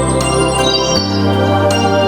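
Music led by sustained electronic organ chords, the bass note changing about a second in.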